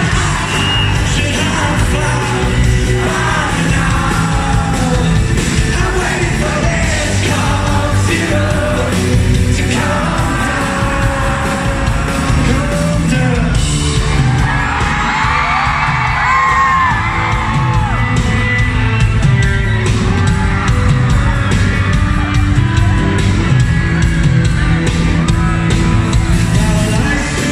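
Live rock band and male lead singer performing in a large hall, with the audience yelling and whooping over the music.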